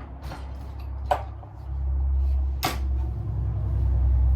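Two sharp clicks from engine parts being handled during a cylinder teardown, over a loud, steady low rumble that starts under two seconds in.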